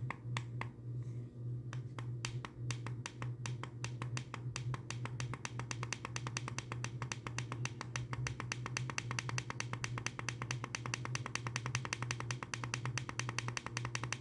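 Rapid clicking of a DIGITEN plug-in thermostat's buttons as the set temperature is stepped down: a few scattered clicks, then an even run of about eight clicks a second. A steady low hum runs underneath.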